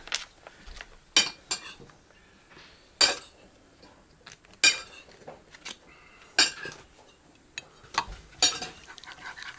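Metal spoon clinking against a porcelain soup plate while stirring: a handful of sharp, separate clinks spread out with quiet between them.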